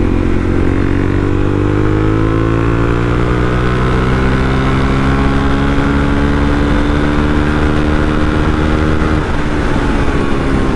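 Suzuki DRZ400SM's single-cylinder four-stroke engine running hard on the road. Its pitch climbs slowly as the bike gains speed, then drops about nine seconds in.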